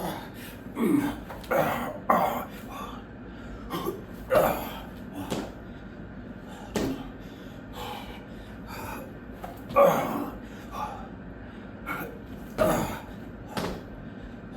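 A man breathing hard and grunting through a burpee with push-ups and jumps: short, irregular forceful exhales and grunts, the strongest about ten seconds in.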